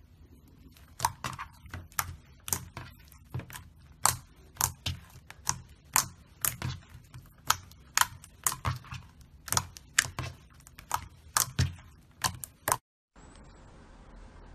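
Hands pressing and poking glossy slime, giving sharp clicking pops from trapped air, irregular at about two a second. Near the end the pops stop abruptly and a softer, steady rustle follows.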